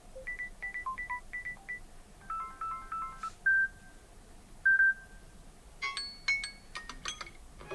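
Samsung Galaxy A34 default ringtones playing: short electronic melodies of clean beeping notes. The pattern changes several times, from quick repeated beeps to alternating notes, two single ringing tones, and a denser chiming run near the end.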